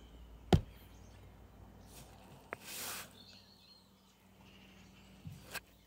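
Handling knocks: a sharp knock about half a second in, a short hiss near the middle and another knock near the end. Birds chirp faintly in the background.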